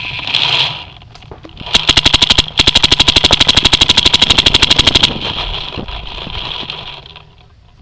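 Paintball marker firing rapid strings of shots: a short burst about two seconds in, then a longer unbroken string of well over ten shots a second lasting about two and a half seconds, which cuts off suddenly.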